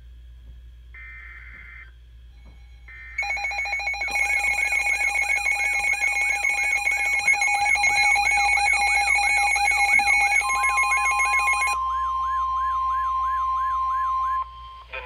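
NOAA Weather Radio alert: three short screeching data bursts about a second apart, then a weather alert receiver's electronic alarm. The alarm is a fast repeating rising warble layered with steady beeping tones, and a steady long warning tone joins about ten seconds in. The whole alarm cuts off just before the announcement resumes, signalling an incoming weather warning.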